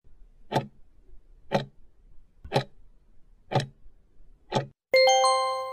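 Countdown timer sound effect: five clock ticks, one a second, then a ringing chime about five seconds in that fades out, marking the end of the answer time.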